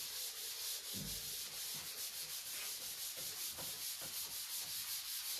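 Hand-writing strokes: a pen or marker scratching and rubbing steadily across the writing surface in quick short strokes, with a light knock about a second in.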